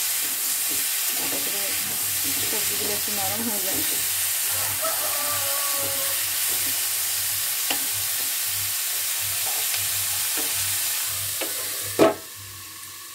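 Diced vegetables sizzling in hot oil in an aluminium kadai while a spoon stirs them, with a few light clinks of the spoon on the pan. About twelve seconds in, a metal lid is set on the kadai with a loud clank, and the sizzling turns much quieter and muffled under the cover.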